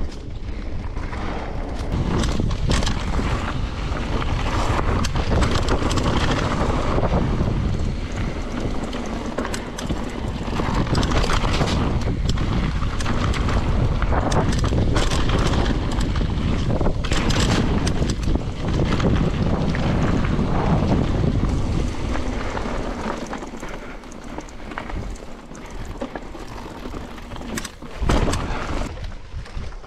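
Wind buffeting the camera microphone while a mountain bike runs fast over a rough trail, tyres rumbling with constant rattles and knocks. It quietens for a few seconds near the end, then one sharp hard knock.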